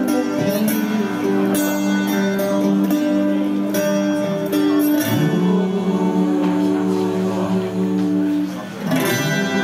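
Live acoustic performance: two acoustic guitars strummed, with a male voice singing held notes over them into a microphone. The music dips briefly near the end, then picks up again.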